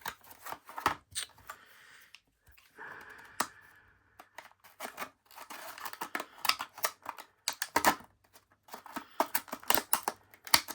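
Stiff plastic blister packaging being handled and cut open, with many sharp clicks and snips and a short stretch of crackling about three seconds in.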